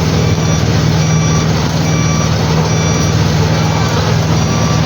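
Concrete curb-laying machine's engine running steadily under load, with a reversing alarm beeping repeatedly over it.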